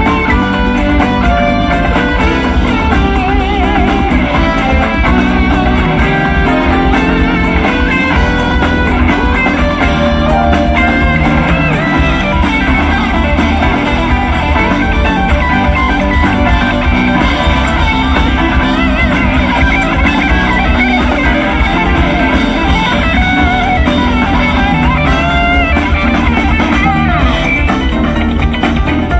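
Live jazz band playing: electric bass, drum kit, keyboard and electric guitar, with the guitar to the fore.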